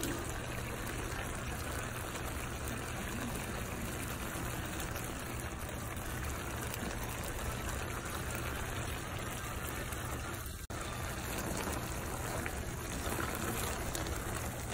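Tomato and red wine sauce simmering around chicken thighs in a hot pan, a steady sizzling bubble. It cuts out for an instant about ten and a half seconds in.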